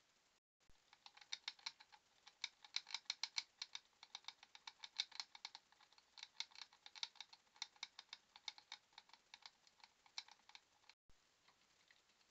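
A mouse scrabbling at a plastic box-style live-catch mouse trap from inside it: a rapid, uneven run of small sharp clicks and ticks lasting about ten seconds, stopping about a second before the end.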